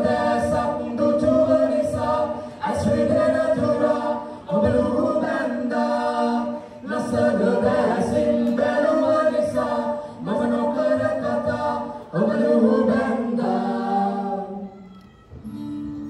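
A group of voices singing a cappella in short phrases with brief pauses between them, trailing off near the end.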